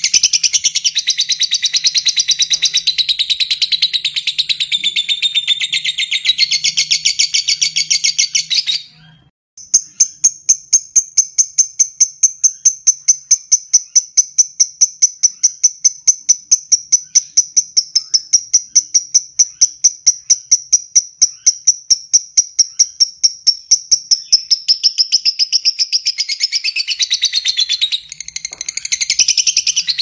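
Fischer's lovebird singing its 'ngekek' song: dense, jumbled chattering for about nine seconds, a brief pause, then one long, even trill of rapidly repeated high notes lasting about fifteen seconds, breaking back into jumbled chatter near the end.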